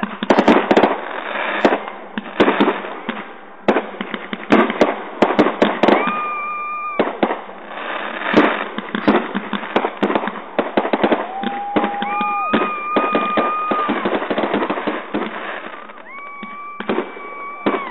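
Fireworks going off in a rapid barrage of sharp bangs and crackles. Four steady, level-pitched whistles run through it, each lasting one to two seconds.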